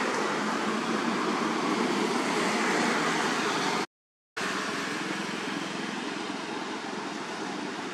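Steady, even background noise with no distinct events, broken by a brief dead-silent gap about four seconds in.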